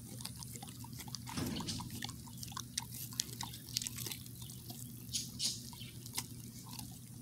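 Old wolf dog chewing and licking raw rabbit, her worn-down teeth working it slowly: wet smacking clicks of jaws and tongue, several a second.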